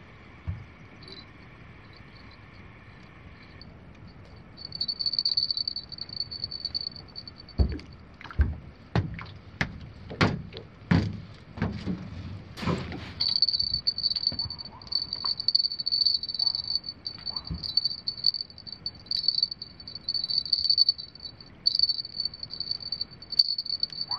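Night insects trilling on one high pitch, a steady pulsing run that starts a few seconds in, after a lower trill at the start stops. In the middle comes a string of knocks and thumps, roughly one a second, the loudest sounds.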